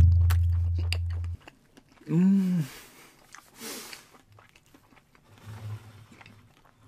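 A loud, deep sound-effect hit whose tone fades and cuts off about a second and a half in, then a person chewing a soft mochi chocolate daifuku, with a hummed 'mm' about two seconds in.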